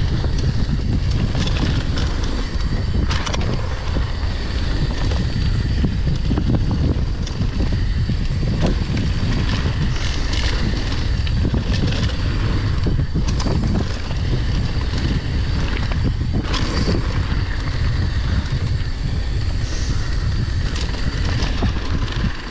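Wind buffeting the microphone of a camera riding on a mountain bike descending a dirt trail at speed. Tyres run over hardpacked dirt and gravel, with scattered knocks and rattles from bumps and landings.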